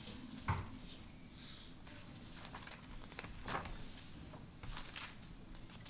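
Faint handling noises at a lectern in a quiet room: a thump about half a second in, then scattered soft rustles and light clicks.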